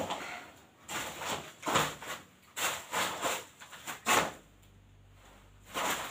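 Footsteps: about six scuffing steps across a floor, then stopping. One more scuff comes near the end.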